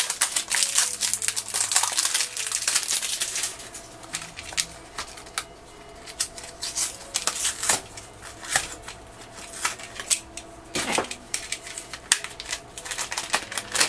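A plastic toy puppy carrier being unwrapped and opened by hand. Its wrapping crinkles for the first few seconds, then hard plastic clicks and taps at scattered moments as the carrier is handled and pried open.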